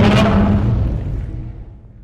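Tail of a designed kaiju roar, layered from Godzilla roar samples, fading away over about two seconds.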